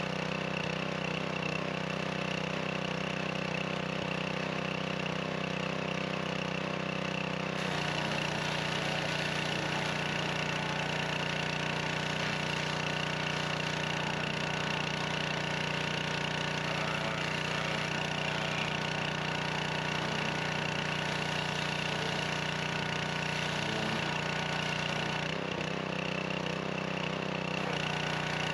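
Gasoline pressure washer's small engine running steadily under load, with the hiss of the high-pressure water jet spraying; the spray hiss gets louder about eight seconds in.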